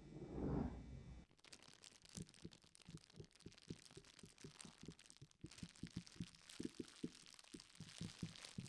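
A soft, muffled low thud about half a second in, then a run of faint short knocks that come quicker and louder toward the end.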